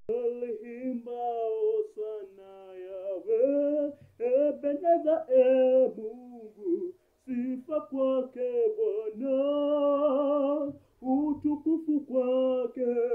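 A man singing a gospel song unaccompanied, in long held phrases with vibrato and short breaths between them.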